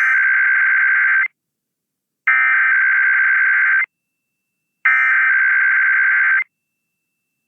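Emergency Alert System SAME header: the digital data burst sent three times, each about a second and a half of harsh, buzzing two-tone warble with about a second of silence between. It is the coded header announcing an EAS Required Weekly Test.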